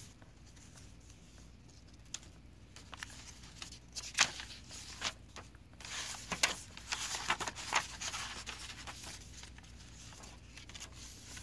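Paper pages of a handmade journal being turned and handled: dry rustles and crisp snaps of paper, starting a few seconds in with one sharper snap, then settling down near the end.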